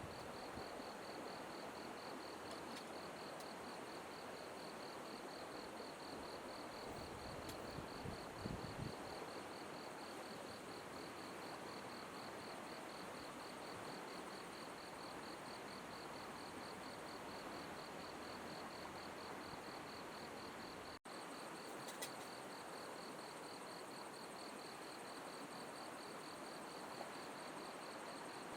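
Steady rush of flowing river water, with a high insect trill, fast and evenly pulsing, running over it.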